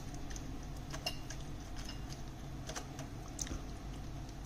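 A spoon pressing and spreading minced pork filling over a cabbage leaf: a few faint, sharp ticks against a low steady hum.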